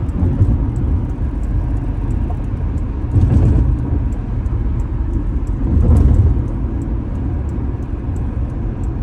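Honda Accord V6 engine running with a steady low rumble, swelling briefly twice, about three and six seconds in. The engine has an intermittent misfire that the scan tool only catches now and then.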